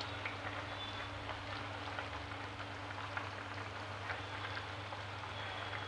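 Thick curry gravy with lentil dumplings simmering in a pan on a gas burner: a steady low hiss with many small bubbling pops, over a low steady hum.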